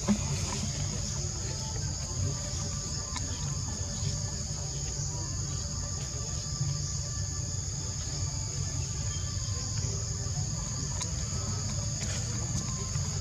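Forest insect chorus: a steady, high-pitched drone in two bands, over a low background rumble, with a brief click right at the start.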